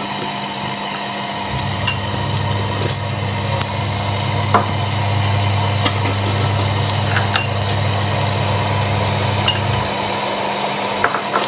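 Onion, tomato and spice masala sizzling and bubbling in hot oil in a pan while it is fried down, with a few light scrapes and knocks of a wooden spoon. A low hum comes in about a second and a half in and stops near the end.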